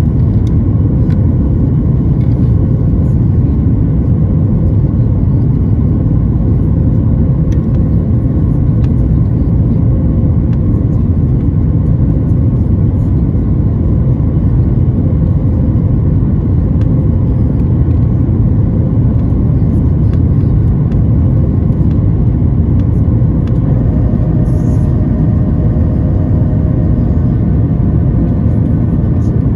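Steady, loud cabin roar of a Boeing 737-8 MAX climbing after takeoff: the CFM LEAP-1B turbofans at climb power and the rush of air along the fuselage, heard from a window seat.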